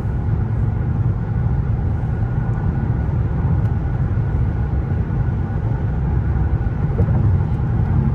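Steady low road and drivetrain rumble of a 2024 Mercedes-Benz S580 cruising, heard inside the car.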